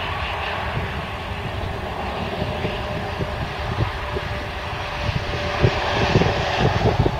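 Airbus A330-243 airliner's Rolls-Royce Trent 700 jet engines running as it rolls out along the runway after touchdown, a steady rushing jet noise with a faint steady tone. It grows louder and gustier in the last couple of seconds.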